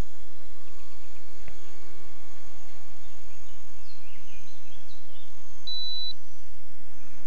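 Steady outdoor background hiss with a few faint, short high chirps in the middle and one brief high-pitched beep about six seconds in.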